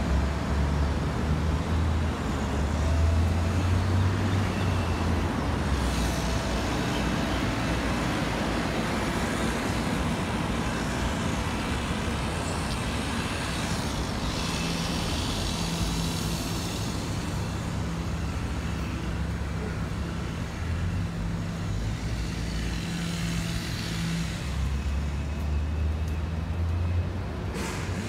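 Road traffic on a city street: a steady hum of passing cars with a low engine rumble that rises and falls as vehicles go by.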